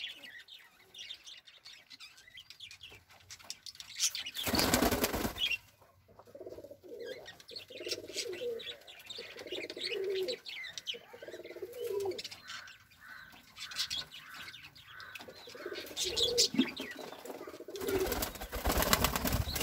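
Pigeons cooing, low calls repeating about once a second, broken by two bursts of wing flapping: a short one about four seconds in and a longer one near the end as a white pigeon takes off from a cage ledge.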